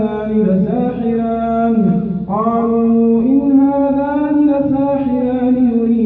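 A man's voice chanting Quran recitation aloud, the imam leading the tarawih prayer, in long melodic held phrases with a short pause for breath about two seconds in.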